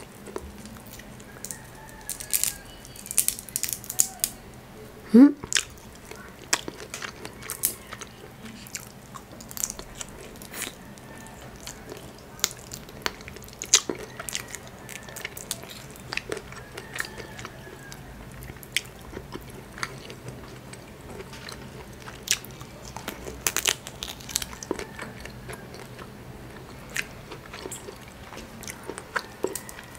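Cooked crab shell crackling and snapping as the meat is picked out by hand, with chewing in between: irregular sharp clicks throughout. A brief rising squeak about five seconds in is the loudest sound.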